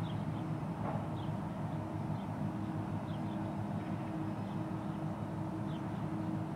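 Steady low drone of marine diesel engines from the container ship and the tug working at its stern, with faint high bird chirps now and then.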